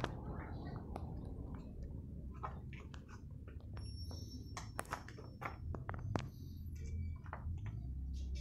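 Handling noise from a hand-held recording device: scattered sharp clicks and rustles over a steady low rumble.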